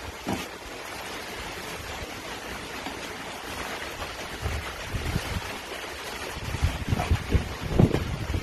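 Steady rushing noise with rustling and dull thumps as sacking and foil coverings are pulled off a lovo earth oven; the handling gets busier and louder in the second half.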